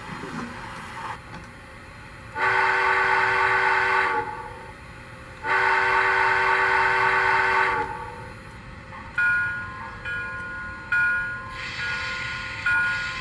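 The MTH model 2-8-2 steam locomotive's onboard sound system sounding two long chime-whistle blasts. Slow, repeated bell strokes follow, about one every two seconds.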